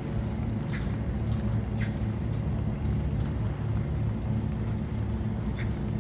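Exhaust fan running with a steady low hum over the hiss of rain, with a few sharp drips tapping: about a second in, at two seconds and near the end.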